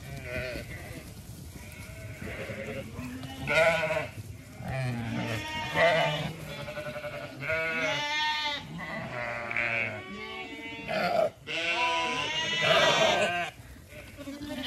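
A flock of Zwartbles sheep, ewes and lambs, bleating. Many wavering calls come one after another and overlap, starting about three seconds in and loudest through the second half.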